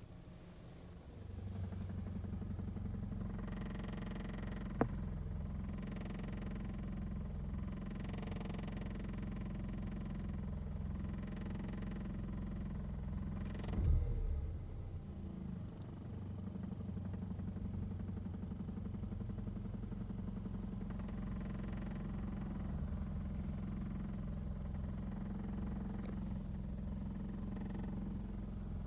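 Škoda Octavia II 1.2 TSI turbocharged petrol four-cylinder running at idle, with a strange sound: a hiss that swells and fades every two seconds or so over the steady engine hum. There is a sharp click once, and a heavier thump about halfway through.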